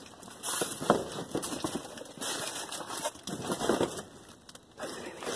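Rubbish being rummaged through in a dumpster: rustling and knocking of plastic and cardboard in irregular bursts, with a few sharp clicks.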